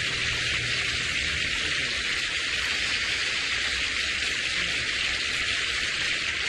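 Steady, even hiss with nothing else in it: tape noise from an old VHS recording.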